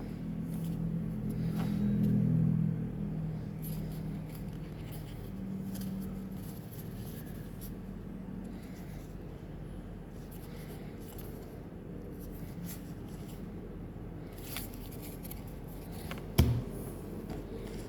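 Trading cards and packaging being handled: light scraping and clicking over a low hum. A low drone swells and fades in the first few seconds, and there is one sharp thump near the end.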